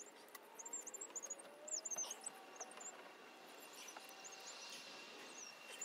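Small birds chirping faintly: many short, quick, high squeaky calls. A faint steady high tone comes in about two seconds in, with a few faint clicks.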